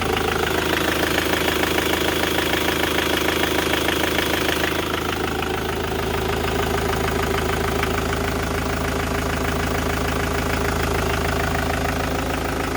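Ford Transit (2002) engine idling with a steady rapid knock, the knock that grows gradually once the engine is warm. About five seconds in, a higher hiss drops away and the knock runs on.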